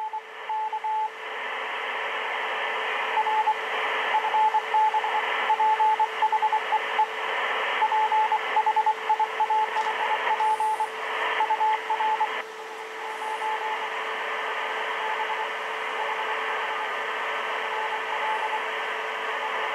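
Morse code (CW) signal from a Kenwood R-1000 shortwave receiver tuned to 7.007 MHz in the 40-metre amateur band: a tone beeping in short and long pieces over band hiss, with a steady lower tone underneath. About twelve seconds in, the beeping grows faint and the hiss drops.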